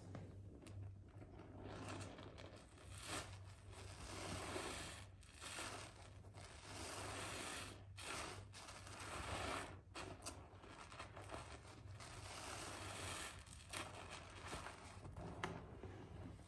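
A soaked scrub sponge squeezed and kneaded by hand in a tub of soapy water: wet squelching and sloshing of suds in irregular bursts.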